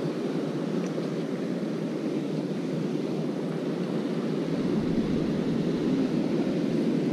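Steady rushing noise of wind and water. About halfway through, a low rumble of wind on the microphone joins in and the noise grows a little louder.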